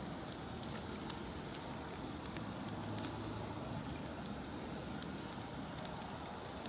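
Meat sizzling in a wire grill basket over campfire coals: a steady hiss, with the fire giving a few sharp crackles.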